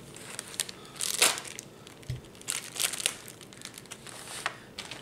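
Small clear plastic parts bag from an RC car kit being torn open and crinkled in the hands, in short bursts of crackly rustling, with a soft low thump about two seconds in.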